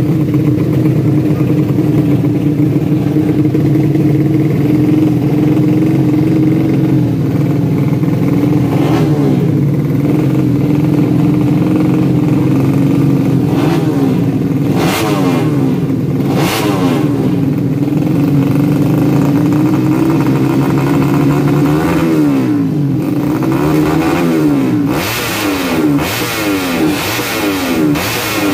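Tuned four-stroke drag-racing motorcycle engines running at held revs. From about two-thirds of the way in, several engines rev up and down over one another, with a few short sharp cracks.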